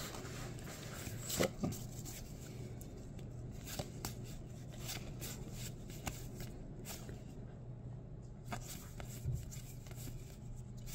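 Stack of Pokémon trading cards being flipped through by hand, one card at a time: a string of short, soft papery flicks and slides at irregular intervals, over a steady low hum.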